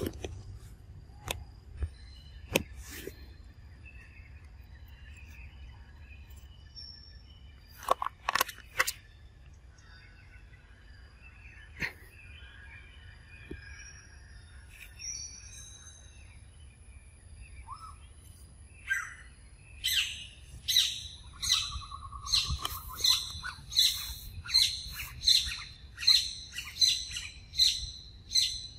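Forest birds calling: scattered sharp chirps at first, then, about two-thirds in, a bird starts repeating a loud call over and over, about one and a half calls a second.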